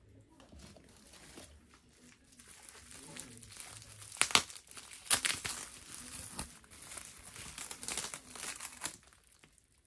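Bubble wrap and thin plastic film crinkling as they are handled and wrapped around a small potted plant. The crinkling grows louder partway through, with a couple of sharp crackles around the middle.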